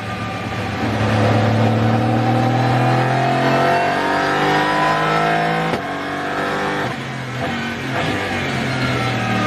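Aston Martin Vantage GT3 Evo's twin-turbo V8 heard from the cockpit, accelerating hard with its pitch rising steadily for about five seconds. It then drops off abruptly with a short lift or gear change, dips again a second later, and climbs once more near the end.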